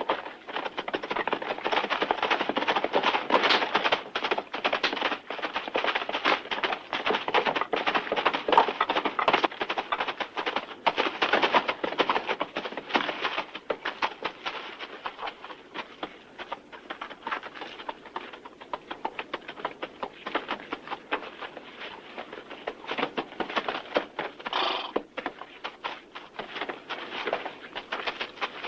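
Horses and cattle at a gallop: a dense, irregular clatter of hooves, louder in the first half, with a brief higher-pitched sound near the end.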